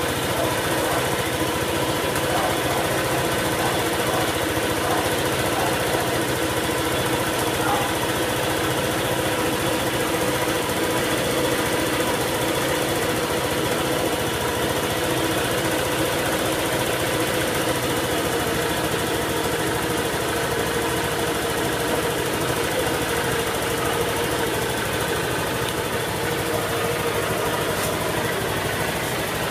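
Honda Airblade 150 scooter's single-cylinder four-stroke engine idling steadily after its spark plug has been replaced with an NGK Iridium plug.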